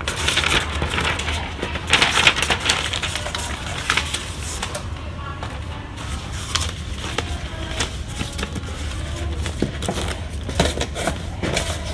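Paper rustling and crinkling as a large folded instruction sheet and a printed guide are handled and drawn out of a cardboard box, loudest in the first few seconds, over a steady low hum.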